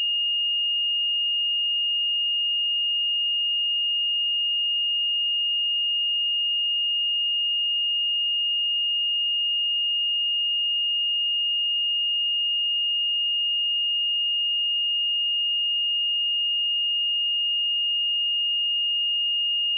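A steady pure sine-wave test tone at 2842 Hz, one unchanging high-pitched note with no other sound.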